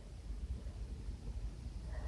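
Quiet lull with a faint low room rumble. A faint intake of breath starts near the end as a sneeze builds.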